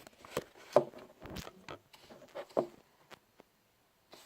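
Handling noise: a scatter of light knocks and rubbing, the loudest about a second in and again after two and a half seconds, dying away to near quiet for the last second.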